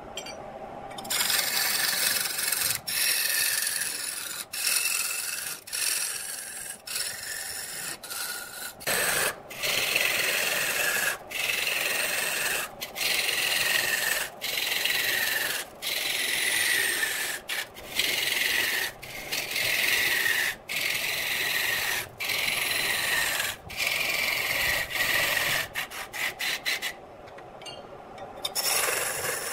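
A long-handled turning tool cutting a large spinning block of pale wood on a lathe: a rasping hiss of shavings coming off. The hiss breaks off briefly about every second and a half as the tool is lifted between passes, and a thin whistling tone slides down in pitch during each pass.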